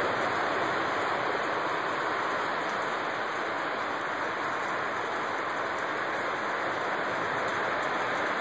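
A very loud, steady rushing noise of unknown origin, like a waterfall or a heavy downpour, holding an even level with no distinct strikes or tones.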